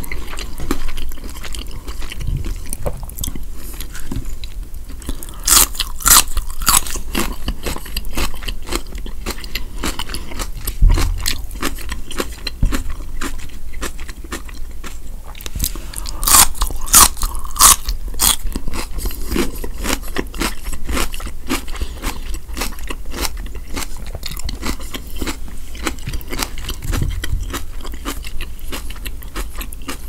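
Close-miked chewing of crispy fried chicken wings and tater tots, a steady run of small crunches and mouth clicks. Loud crisp crunches break out about five to seven seconds in and again around sixteen to eighteen seconds, just after a fresh bite goes into the mouth.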